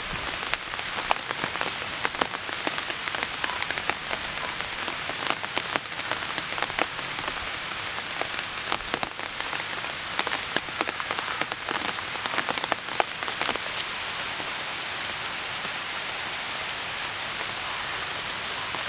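Heavy rain falling, with many sharp drop impacts through the first fourteen seconds or so, then a steadier hiss.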